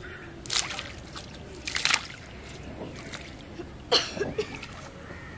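Water splashing in a shallow rain-filled ditch, in three separate splashes, the last one about four seconds in the sharpest and loudest.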